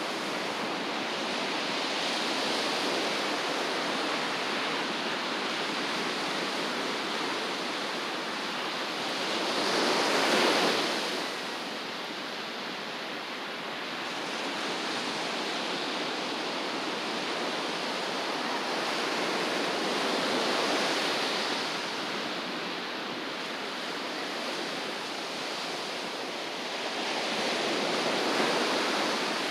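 Ocean surf washing onto a beach, a steady rush with waves breaking louder about ten seconds in and again near the end.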